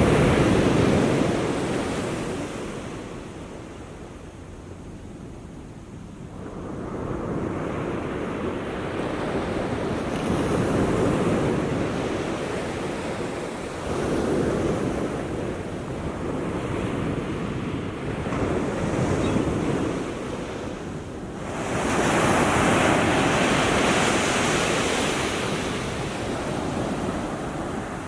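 Small waves washing onto the shore, each surge swelling and then draining away every few seconds, with the biggest swell about three-quarters of the way through.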